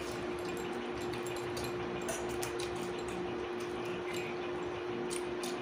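A steady hum with faint, scattered soft clicks, the small sounds of someone eating a meal of rice and vegetables.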